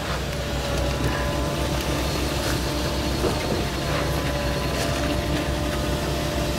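Heavy diesel engine of construction-site machinery running steadily, a low drone with a faint steady tone above it and a few light knocks.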